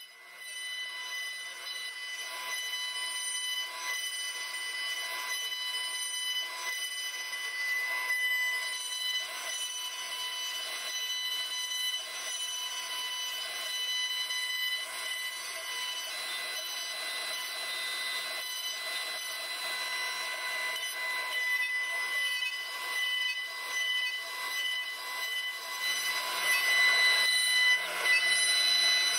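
The spindle of a home-built CNC router spinning a 1/2-inch ball-nose bit at about 20,000 RPM, making roughing cuts into a Douglas fir blank that turns on a rotary axis. The sound is a steady high-pitched whine of several tones over the rough noise of wood being cut away, and it grows louder near the end.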